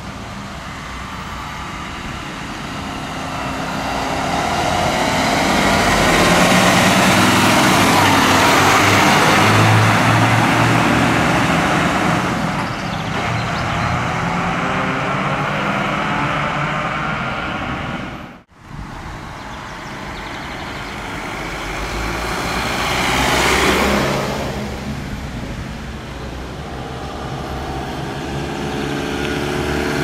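Fire trucks driving past one after another, diesel engine and tyre noise swelling as each one passes and then fading. The sound drops out for a moment about two-thirds through, and another vehicle passes soon after.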